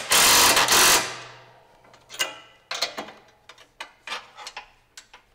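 A power tool runs for about a second, then spins down and fades. After it come a string of light metal clicks and taps as the bracket and its bolts are handled.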